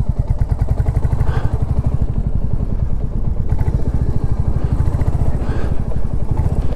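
Royal Enfield Classic 350's single-cylinder engine running while riding, a steady rapid thump of exhaust pulses heard from the saddle.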